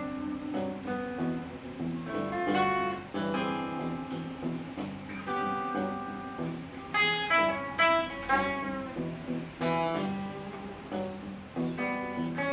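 Solo guitar playing: chords and short runs of plucked notes over sustained low notes, in irregular phrases with louder clusters of notes about two, seven and ten seconds in.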